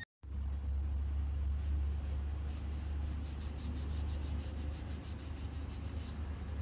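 A steady low rumble, with faint, quick rubbing of a cloth on a car's plastic door handle.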